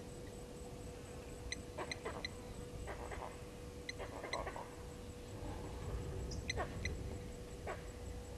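Vervet monkeys giving short barking alarm calls, each falling in pitch, repeated at irregular intervals: their alarm at a leopard moving nearby. Sharp high chirps are mixed in.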